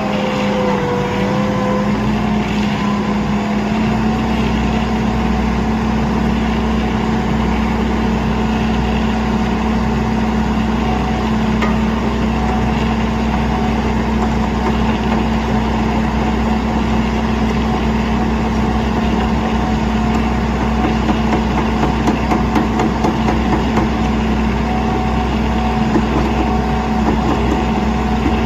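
Heavy engine running steadily at constant speed, a loud, even hum whose pitch steps up slightly about four seconds in.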